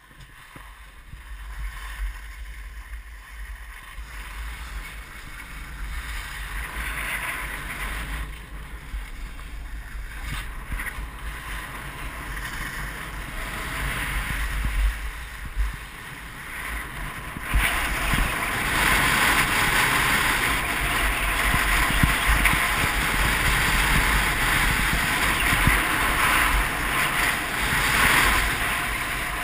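Wind buffeting a GoPro action camera's microphone during a fast ski descent, a low rumble under the rushing hiss of skis running over packed snow. It grows louder, with a sharp step up in the hiss a little past halfway.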